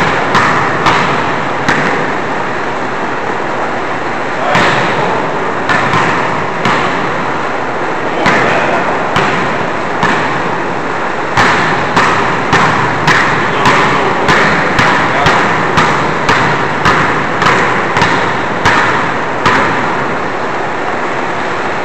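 Two basketballs dribbled on a hardwood gym floor: repeated bouncing thumps, coming about twice a second through much of the second half, with a few short pauses.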